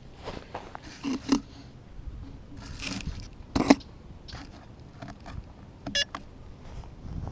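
Irregular scrapes, clicks and rustles of the camera-mounted quadcopter being handled and turned on the grass, the loudest knocks about one and three-and-a-half seconds in. A brief electronic tone sounds about six seconds in.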